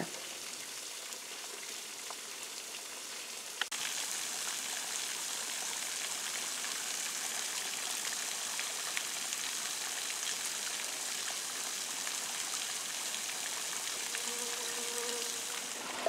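Small spring-fed forest brook trickling through grass: a steady, soft rush of running water. A click about four seconds in, after which it runs a little louder.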